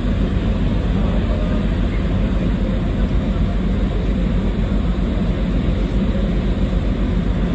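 Steady low rumble heard on the open deck of the Tokai Kisen ferry Salvia Maru as it moves slowly alongside a pier, with ship's engine noise mixed with wind on the microphone.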